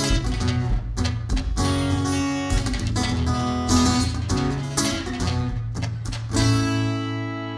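Acoustic guitar played solo, a run of strummed and picked chords; about six seconds in, a last chord is struck and left to ring, fading away.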